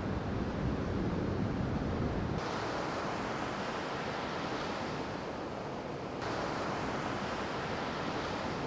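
Ocean surf washing steadily on a beach, with wind noise on the microphone; the background changes abruptly about two and a half seconds in and again about six seconds in.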